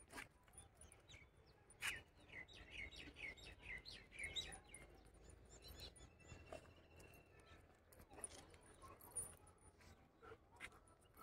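Faint bird chirping: a quick run of short chirps about two seconds in, then a brief thin whistle a few seconds later, over quiet outdoor background with a few faint clicks.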